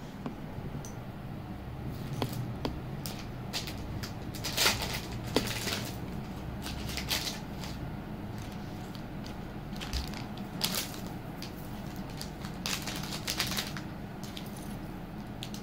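Irregular clicks, light clinks and short rustles of hands handling jewellery pieces, with the loudest cluster about five seconds in, over a steady low hum.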